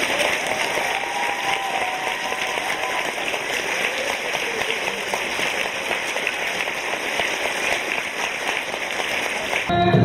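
A large audience applauding steadily. The clapping cuts off suddenly near the end as music starts.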